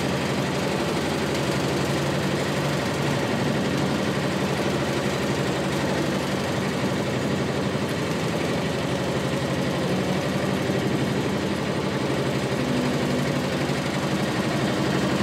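Small motorboat's engine running steadily as the boat cruises slowly along the river.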